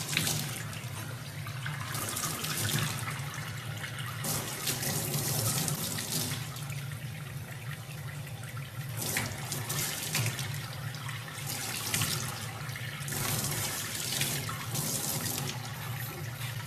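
Tap water running into a stainless-steel sink, with irregular surges of splashing as a young chimpanzee's hand breaks the stream.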